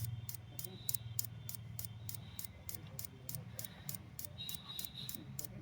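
Fast, even mechanical ticking, about three ticks a second, over a low steady hum.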